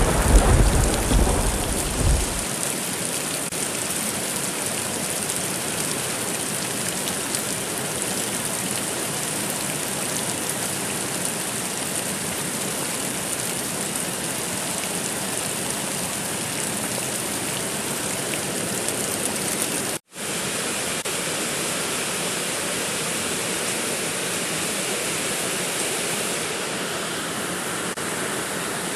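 Steady heavy rain, with the tail of a low thunder rumble dying away over the first two seconds. The sound cuts out for an instant about two-thirds of the way through, then the rain carries on.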